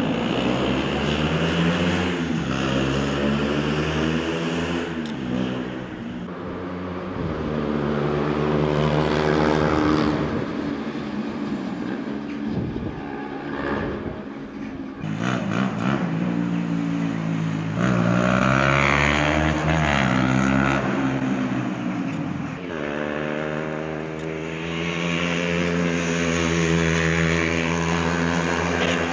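Motorcycle engines revving as several bikes ride past one after another. Each rises in pitch as it accelerates and falls away as it passes.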